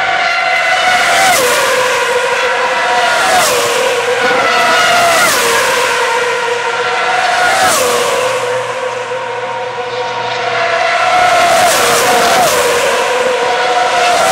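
2007 Formula One cars' 2.4-litre V8 engines passing one after another at full throttle, about seven in all. Each pass is a loud, high engine note that drops sharply in pitch as the car goes by, with a rush of noise at the moment of passing.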